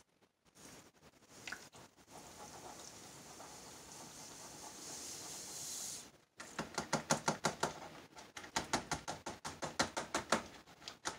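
Sodium hydroxide poured from a cup into a plastic pitcher of water for a lye solution: a steady hiss that slowly grows louder. About six seconds in it gives way to a fast run of plastic clicks and taps, several a second.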